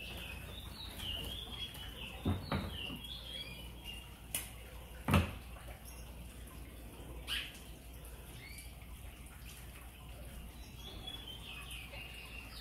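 Birds chirping in short, high, falling calls, in a cluster near the start and again near the end, over a steady low hum. A few sharp clicks and knocks, the loudest about five seconds in, come from hands working copper wire around the branches of a potted bonsai.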